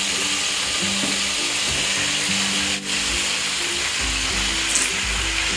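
Chicken and vegetable shashlik skewers frying in hot oil in a pan, a steady sizzle as more skewers are laid in. Background music plays underneath.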